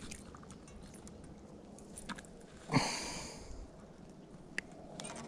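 A hooked small bass splashing once as it is pulled from the water, a sudden splash with a hiss of spray that fades over about a second, about three seconds in. A few faint clicks of tackle before and after.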